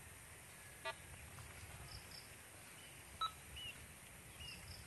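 Metal detector giving short electronic beeps as its coil is swept over the ground. There is one beep about a second in and a sharper, louder one about three seconds in, the detector signalling a metal target.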